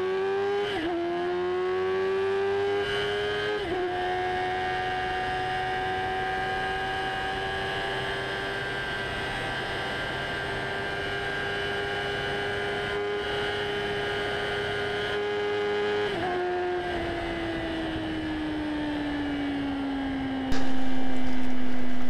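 A racing motorcycle's engine held at high revs, its note dipping briefly at gear changes, then slowly winding down as it eases off. A louder, rougher noise comes in near the end.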